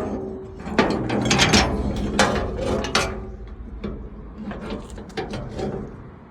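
Metal clanks and knocks of a padlock, partly cut through with a grinder, being forced to break it open. There is a sharp knock at the start and a dense run of clatter for the next three seconds, then sparser knocks.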